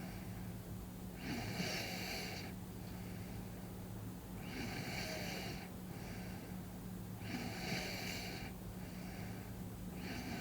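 A sleeping person's heavy breathing and light snoring, one noisy breath about every three seconds, over a steady low hum.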